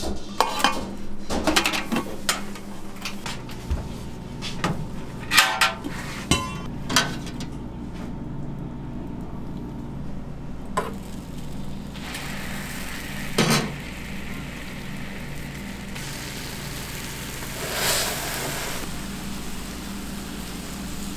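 A metal ladle clanks repeatedly against a stainless steel pot of beaten egg. Egg then sizzles steadily on a hot flat-top griddle, with a couple of metal knocks and a spatula scraping across the griddle near the end.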